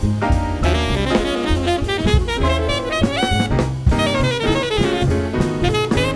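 Jazz saxophone solo played in quick, flowing runs over piano, bass and drum kit, in a ballad-tempo band arrangement.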